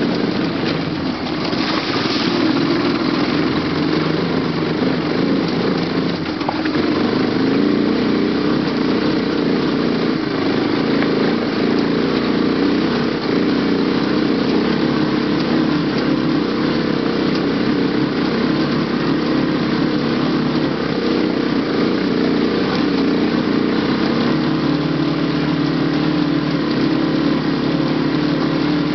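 ATV (quad) engine running steadily while the quad is driven over a rocky mountain trail.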